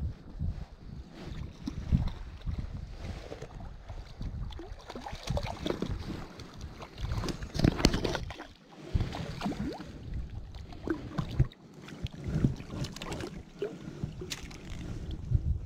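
Irregular splashing and sloshing of water as a cutthroat trout is brought into a landing net, loudest a little past halfway. Wind rumbles on the microphone throughout.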